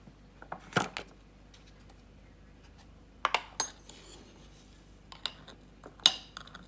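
Kitchenware being handled: a few sharp clinks and knocks, such as a spoon, cup or bowl being set down, with small taps in between. The clearest come about a second in, around three and a half seconds in, and near the end.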